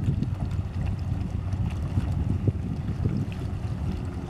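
Low, steady engine hum of a small motor ferry boat approaching across the river, with wind buffeting the microphone.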